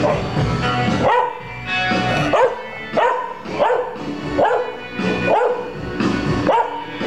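Pembroke Welsh corgi howling and yipping along to orchestral music, a string of short rising calls about once a second.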